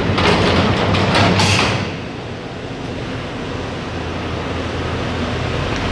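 Chevy Silverado 3500HD dump truck's engine running as the truck rolls slowly into a car wash bay, echoing in the enclosed bay. A clattering rattle sounds over the first two seconds, then a steady rushing noise carries on.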